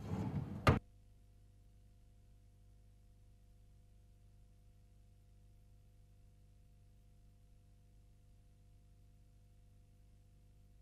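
A kitchen cabinet drawer slides and shuts with a sharp knock within the first second, then near silence with a faint steady hum.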